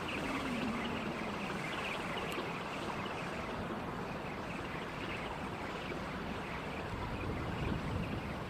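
Steady outdoor harbour noise of wind and water, with a faint low hum that slides down in pitch about half a second to a second in.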